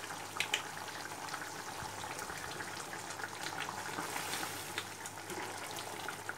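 Thick curry gravy boiling in a pan: a steady bubbling with many small pops, stirred with a spatula in the second half.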